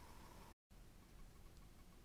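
Near silence: faint room tone, broken by a split-second gap of total silence about half a second in.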